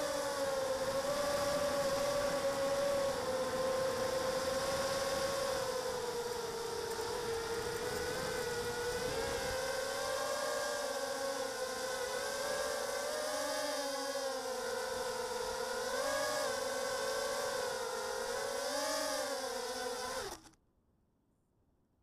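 The six 1306 3100kv brushless motors of an Armattan Mini Hex hexacopter whine, the pitch wavering up and down with the throttle, heard through the onboard Mobius camera. Near the end the whine stops abruptly as the quad lands and the motors shut off.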